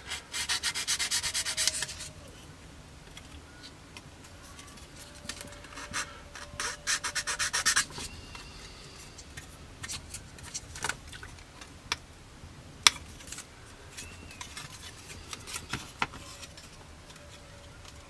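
Sanding stick rubbed quickly back and forth on a plastic model-kit part, smoothing away leftover sprue attachment points, in two bursts of rapid strokes: one at the start and one about six seconds in. Between and after them come small clicks and taps of the plastic part being handled, with one sharper click about thirteen seconds in.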